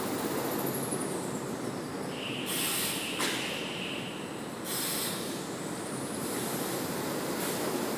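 Steady mechanical running noise of a toilet paper production line with its roll conveyors, with two short bursts of hiss, one about two and a half seconds in and one near five seconds.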